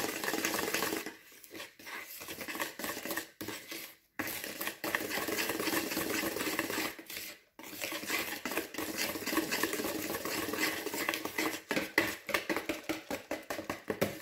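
A wire balloon whisk beating flour into runny cake batter in a mixing bowl, with quick, even scraping and clicking strokes. It pauses briefly about a second in, again at about four seconds, and again at about seven and a half seconds.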